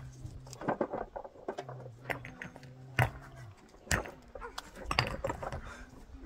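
Stones knocking sharply against stones as they are thrown onto a rock pile, about five single knocks. A low, drawn-out animal call runs for about two seconds in the middle.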